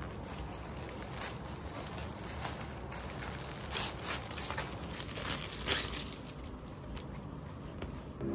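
Thin plastic mailer bags crinkling and rustling as they are cut open with scissors and pulled apart, in irregular crackles with a few louder rustles in the middle.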